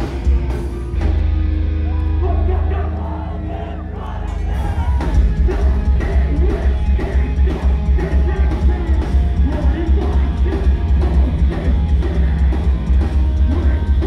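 Live post-hardcore band playing loud. A held, ringing chord fills the first few seconds, then the drums and full band come in at about four and a half seconds, with vocals over them.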